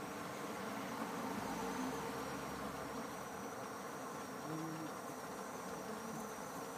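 Steady outdoor background hiss with a faint, thin high tone and a few faint murmurs low down; nothing sudden.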